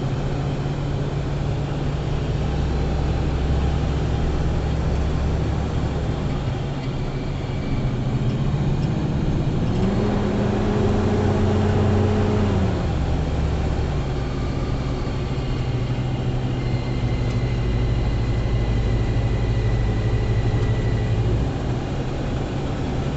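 A car's engine and road noise while driving. The engine note steps up about ten seconds in and drops back a few seconds later.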